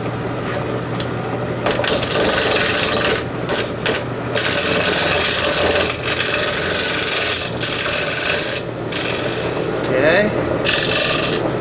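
Wood lathe running with a steady motor hum while a hand-held turning tool scrapes across a spinning plywood disc being smoothed flat. The cutting hiss comes in stretches, breaking off briefly each time the tool lifts away.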